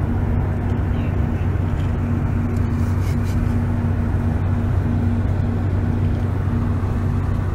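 Steady drone of an airliner cabin in flight: an even rushing noise with a low hum and a second, higher hum over it, and a few faint clicks.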